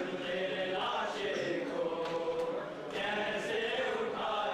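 Noha recitation: a male voice chanting a lament with a group of men chanting along. Faint slaps of chest-beating (matam) come about once a second.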